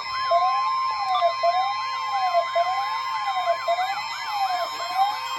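Emergency weather alert signal: a steady tone just above 1 kHz, the NOAA Weather Radio 1050 Hz warning alarm, with siren-like wailing layered over it. A slow sweep rises and falls about once a second, and a faster yelping sweep runs above it.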